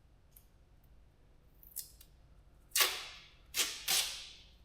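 Masking tape being pulled off the roll for masking a furnace before painting: three short, loud rips in the second half, the last two close together, after a faint one just before.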